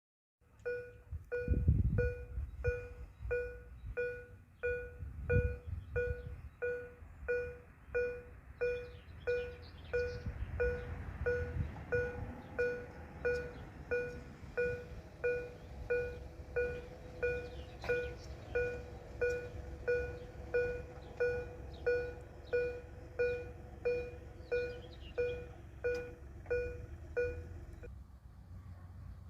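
Level crossing warning bell ringing in a steady, even rhythm of about one and a half strikes a second, then stopping suddenly near the end, with a low rumble underneath.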